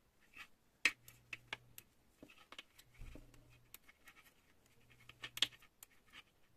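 Metal knitting needles clicking and scraping against each other as yarn is worked in a knit-and-purl rib: a string of faint, irregular ticks, the sharpest about a second in and again near five and a half seconds.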